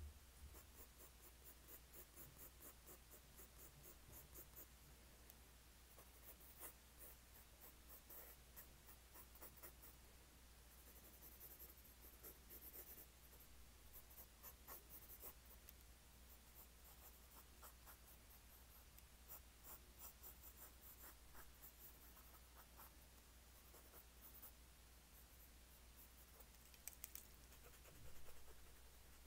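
Faint scratching of a pen drawing on paper, in many short, quick strokes that come in clusters.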